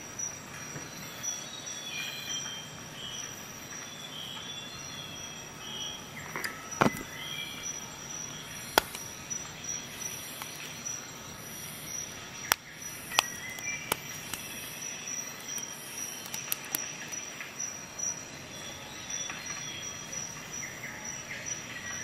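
Scattered sharp clicks of small steel tool bits and parts being handled in a plastic bit holder, a few of them louder, over a steady high whine and faint chirping sounds.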